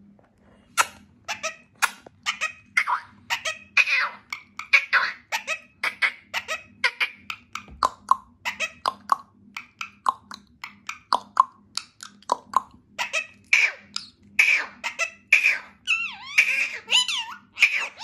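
Indian ringneck parakeet chattering and babbling in a rapid, unbroken string of short, high-pitched, laugh-like syllables, with a few quick squeaky glides near the end.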